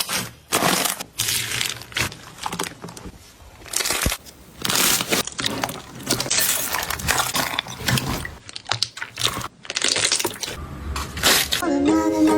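Slime being squeezed and pressed by hand, giving an irregular run of crackling, crunching bursts. A brief pitched sound comes near the end.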